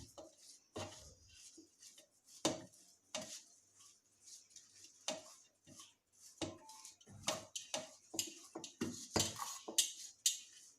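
A small bowl pressing and mashing boiled potatoes in a vessel: soft squelches with irregular sharp clinks and knocks where the bowl strikes the container, one or two a second.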